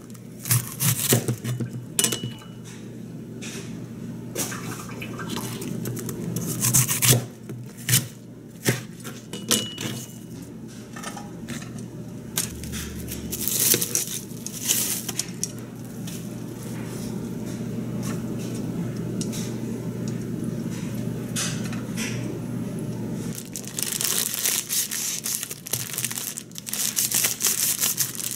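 Kitchen cooking sounds: a chef's knife chopping bok choy on a plastic cutting board, then a steady frying hiss from a skillet on the stove. Near the end comes the rustle and crinkle of a plastic enoki mushroom bag being cut open.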